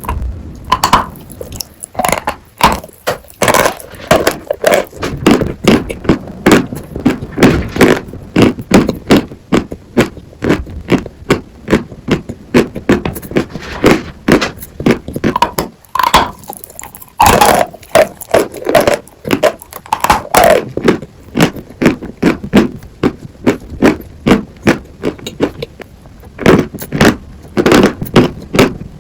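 Sawn chalk crunched and chewed close to the microphone: a dense run of crisp crunches, several a second, with short pauses between bites.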